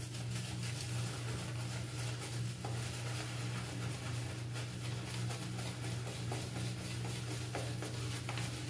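Shaving brush working soap into lather, a soft wet swishing made of many small irregular crackles, over a steady low hum.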